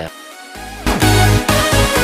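Electronic dance music: a quieter build-up, then a heavy bass beat coming in about a second in.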